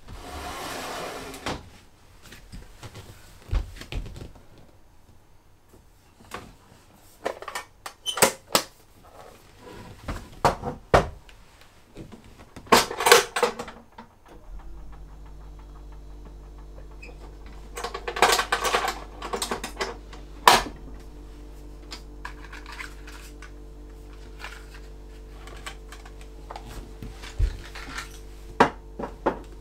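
Gear being handled on wooden shelves: scattered clicks, knocks and clinks, with short rustles, as items are picked up and set down. About halfway through a steady low hum comes in and holds.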